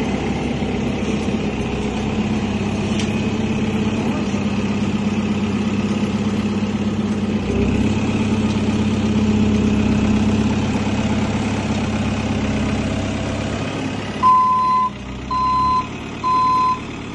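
JCB telehandler's diesel engine running steadily. Near the end its reversing alarm starts, beeping about once a second, three beeps.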